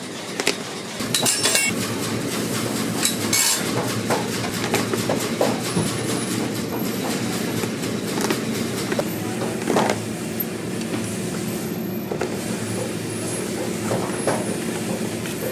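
A steady mechanical rumble, like a machine running, starts about a second in and carries on throughout. Over it come scattered sharp clicks and creaks as cobbler's pincers pry a worn sole off a leather work boot, pulling it away from its nails.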